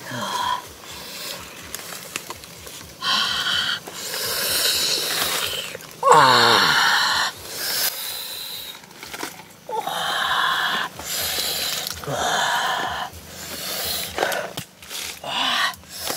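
A man's breathy eating noises: repeated hissing breaths every second or two, with one loud voiced sigh falling in pitch about six seconds in.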